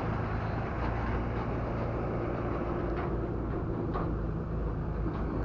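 A steady low mechanical hum, like an engine idling, with two brief faint sounds about three and four seconds in.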